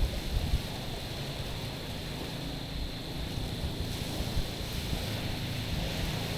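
Small waves lapping and washing over a stony shore: a steady wash of water, with low, uneven rumbles of wind buffeting the microphone.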